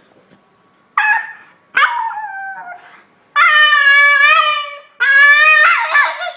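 A dog giving two short yips, the second falling in pitch, then two long, high-pitched howls.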